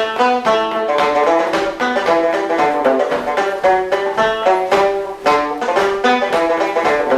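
Background music: a quick, busy melody of plucked string notes, banjo-like.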